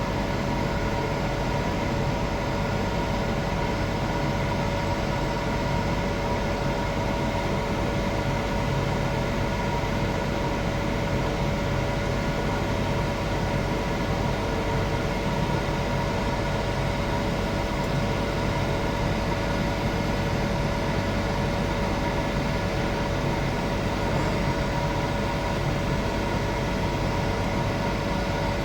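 Welding arc crackling steadily through a long pass on a pipe root, with a steady whine underneath.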